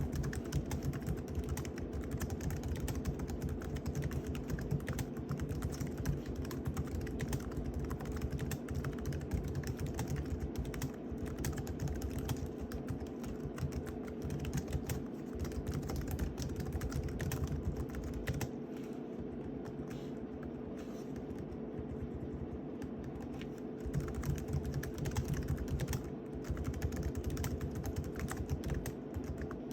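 Typing on an SK-8855 keyboard, a ThinkPad-style USB keyboard: a fast, continuous run of key clicks, with a faint steady hum underneath.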